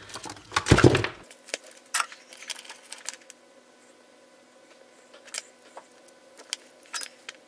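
Handling noise from a LiPo battery pack being turned over by hand on a workbench: a knock in the first second, then scattered light clicks and taps of the pouch cells and their leads.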